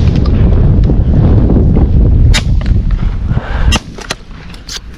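Several shotgun blasts from hunters firing on geese, over a heavy low rumble of wind buffeting the microphone that drops away near the end.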